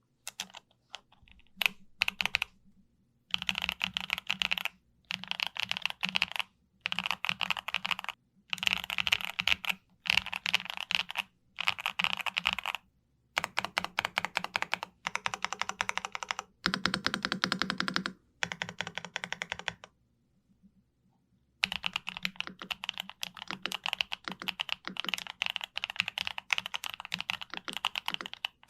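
YUNZII B75 Pro mechanical keyboard being typed on: a few single key presses, then fast typing in short bursts of about a second each with brief pauses between. After a pause of about two seconds, the typing runs on without a break.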